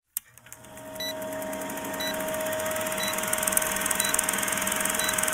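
Old-film countdown leader sound effect: a projector-style whir with a steady hum and rapid clatter, and a short high beep once a second as the numbers count down.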